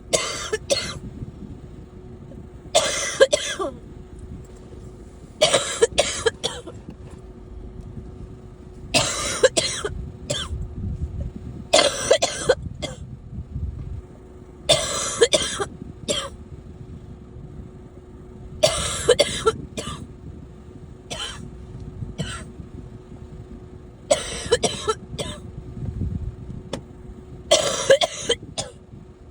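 A person coughing over and over, about ten short bouts roughly three seconds apart. Each bout is a hard cough followed by one or two smaller ones, over a faint steady hum.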